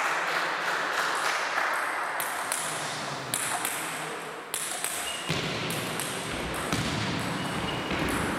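Table tennis balls bouncing and being struck, as sharp clicks at uneven intervals over a steady hall din.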